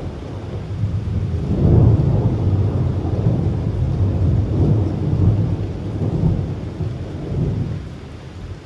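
Thunder rolling in a rainstorm, building to its loudest about two seconds in and rumbling on before dying away near the end, with light rain underneath.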